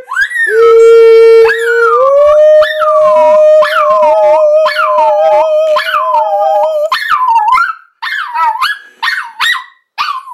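Small white fluffy dog howling along to a woman's long held sung note, its howls rising and falling about twice a second. After about seven seconds the singing stops and the dog goes on with short, broken howls and yips.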